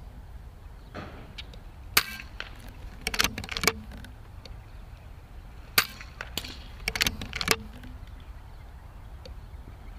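Air rifle shooting: a series of short, sharp cracks and clicks, the loudest about two seconds in and just before six seconds in.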